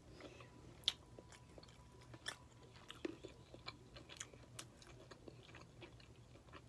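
Close-up mouth sounds of someone chewing seafood: quiet, irregular wet smacks and clicks, the sharpest a little under a second in.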